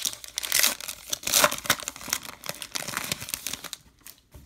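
Baseball card pack wrapper being torn open and crinkled by hand, a dense crackling that dies down near the end.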